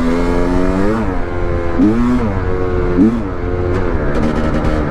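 Honda CR500R's single-cylinder 500cc two-stroke engine, freshly rebuilt, being ridden: its pitch climbs under throttle and drops back about four times.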